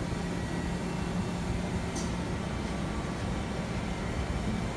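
Steady hum of a powered-up Mazak Multiplex 6200Y CNC lathe standing at idle, with a low constant drone. A faint tick about two seconds in.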